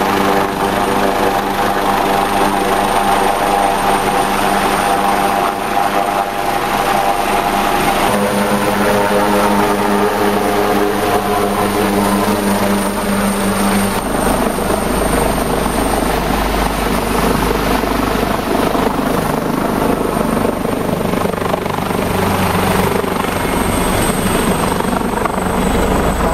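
Rescue helicopter flying close by, its engines and rotor running loud and steady with a thin high whine. The sound changes abruptly about eight and fourteen seconds in, with a heavier low rumble after the second change.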